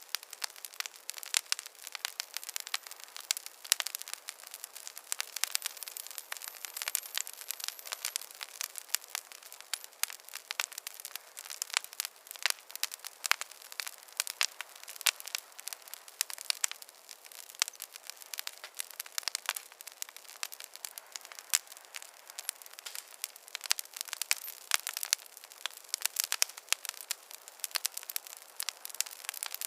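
Wood fire crackling steadily: a dense, irregular stream of small sharp pops and snaps over a soft hiss.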